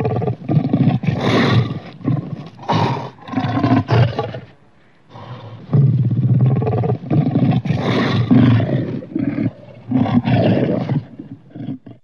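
Sound-designed werelion roars built from big-cat roars: two long bouts of loud, repeated roaring, the second starting about halfway through and breaking into short bursts near the end.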